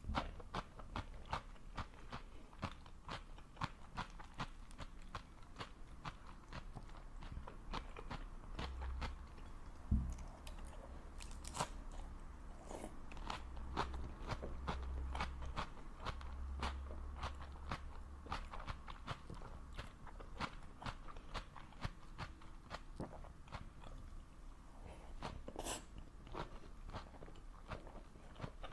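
A person chewing food close to the microphone: a long run of crisp, wet crunches and mouth clicks, several a second. There is one louder thump about a third of the way through.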